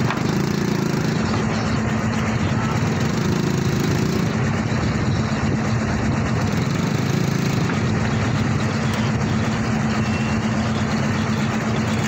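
Small engine idling steadily: a constant low hum over rough noise.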